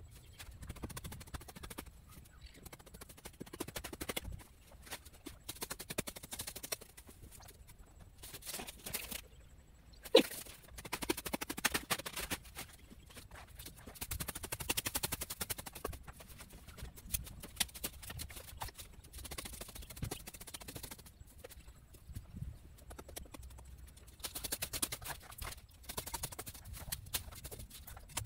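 Garden hoe chopping into grassy soil over and over to clear weeds, dull knocks and scrapes coming in bunches of strokes, with one sharper, louder knock about ten seconds in.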